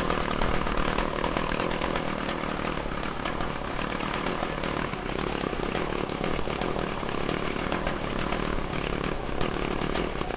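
Qualcast petrol strimmer's small two-stroke engine running steadily at idle on a newly fitted carburettor, without cutting out. The idle speed is a little low.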